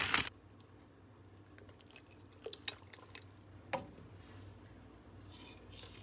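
A plastic bag's crinkling stops right at the start, then a few faint clicks and knocks from a stockpot of soup, with soft liquid sloshing near the end as greens are stirred in.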